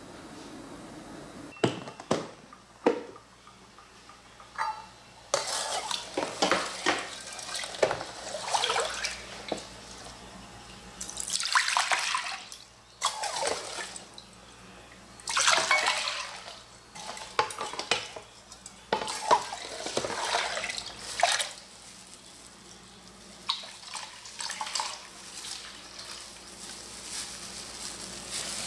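Liquid being ladled and poured into a glass bowl in repeated pours, each a splashing, trickling stretch of a few seconds. A few sharp clinks of metal kitchenware sound near the start.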